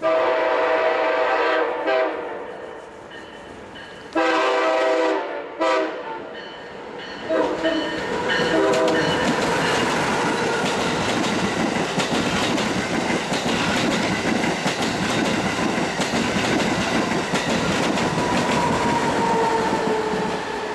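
Train horn sounding a long, long, short, long pattern, the standard grade-crossing signal. The train then passes at speed with a steady rolling roar and wheel clatter.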